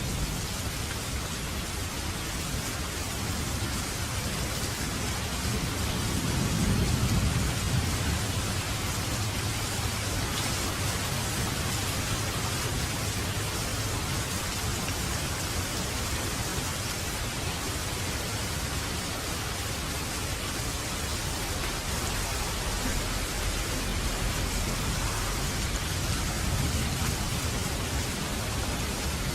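Steady rain falling. A low rumble of thunder swells about six seconds in and fades a couple of seconds later.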